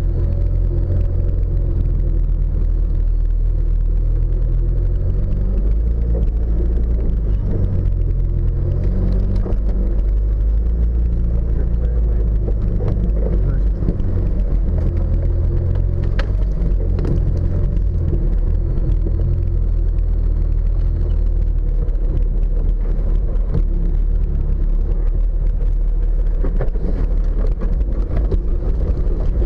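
Off-road vehicle driving, its engine running with a steady low drone and the occasional knock or rattle from the body.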